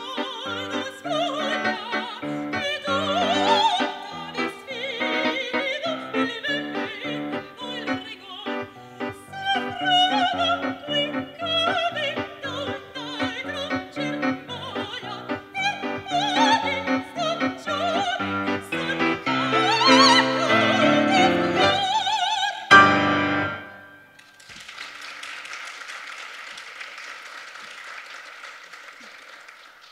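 Operatic soprano singing with grand piano accompaniment, the song closing on a loud final chord about 23 seconds in. About a second and a half later comes steady audience applause.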